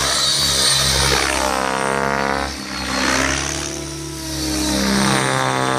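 Blade 700X electric RC helicopter whining and whirring as it flies 3D manoeuvres, its pitch sweeping up and down and its loudness dipping twice, about two and a half and four seconds in.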